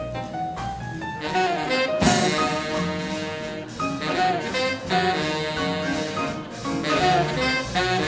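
Big band swing jazz from a dance orchestra playing 1920s–40s style: saxophones and brass over piano and drums, with a loud full-band accent about two seconds in.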